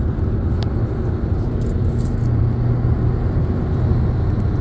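Steady low rumble of a car on the move, heard from inside the cabin, with a faint click about half a second in.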